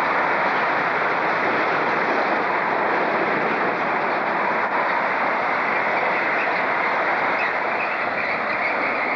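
Freight train of covered box wagons rolling past: a steady noise of steel wheels running on rail.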